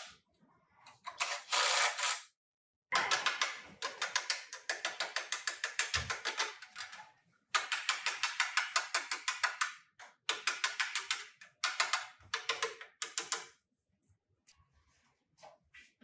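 Rapid mechanical clicking in runs of a few seconds, roughly eight sharp clicks a second, with short pauses between runs.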